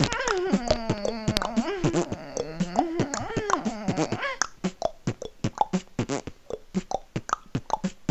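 Solo beatboxing. For the first four seconds or so it is pitched, gliding vocal sounds. It then breaks into a fast run of sharp percussive mouth-drum hits, about five or six a second.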